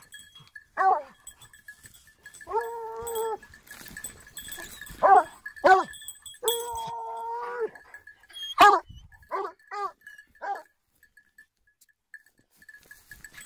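Ariégeois scent hound baying while working a scent trail on a leash: a run of short yelping bays and two longer held bays, the calls stopping a few seconds before the end.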